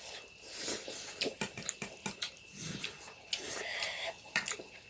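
Close eating sounds: snails in curry being slurped and chewed, with many small clicks and short sucking noises.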